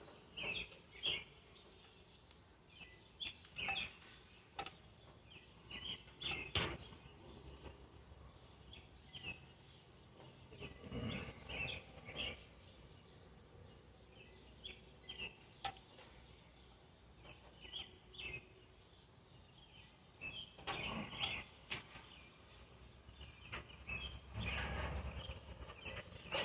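Sporadic clicks and rustles of hands working over an old wiring harness, untaping and handling the wires, with small birds chirping now and then in the background.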